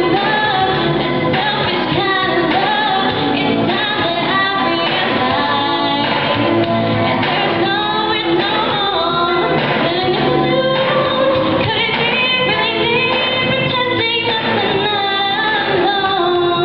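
Girls' show choir singing a pop song through microphones, with a lead voice in front of the group and pop accompaniment underneath.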